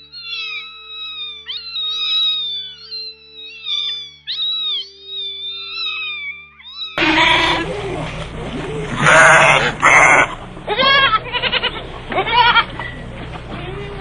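A kitten mewing over and over in high, wavering calls. About halfway through, the sound cuts to a louder, harsh noisy stretch broken by a few short rising-and-falling calls.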